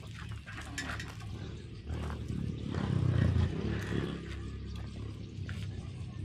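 A low rumble that swells about three seconds in, with a few light metallic clinks from a bicycle being parked.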